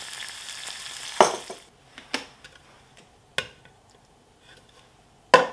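Diced onions sizzling in butter in a small stainless-steel saucepan; the sizzle stops abruptly about a second and a half in. After that, a few short, sharp knocks of a wooden spoon and a plastic jug against the pan as milk is poured in and stirred, the loudest near the end.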